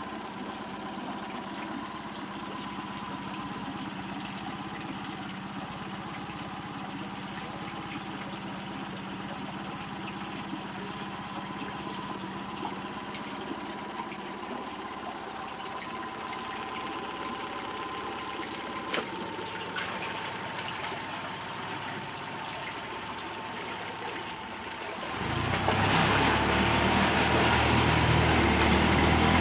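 Honda 20 four-stroke outboard motor idling steadily on a test tank after its overheating repair. Near the end it is opened up and gets much louder, with the propeller churning the tank water.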